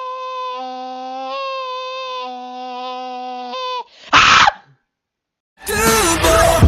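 A long, very steady high-pitched whining note, with a lower hum coming and going twice beneath it. It breaks off into a short loud burst of noise, a second of silence, then loud hip-hop music starting near the end.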